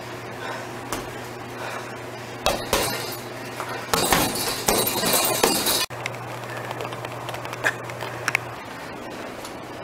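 Punches landing on a hanging heavy bag, the bag's metal hanging chain clinking and rattling with the blows. A few hits come about two and a half seconds in, then a fast flurry about four seconds in that cuts off abruptly near six seconds. A steady low hum sits underneath, with a few faint clicks afterwards.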